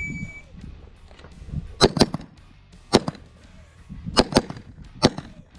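A short high electronic beep, typical of a shot timer's start signal, then six handgun shots fired over about three seconds, two of them as quick pairs.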